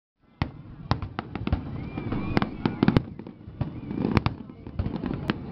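Fireworks display: an irregular run of sharp bangs and cracks, two or three a second, over a steady rumble.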